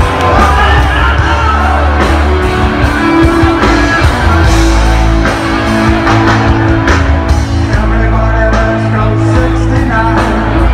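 Loud rock music with a singer and guitar over a steady, heavy bass line.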